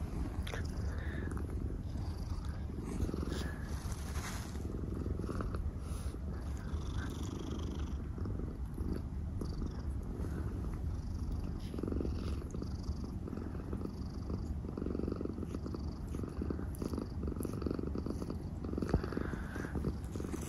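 Domestic cat purring, a steady, fast-fluttering rumble that goes on without a break.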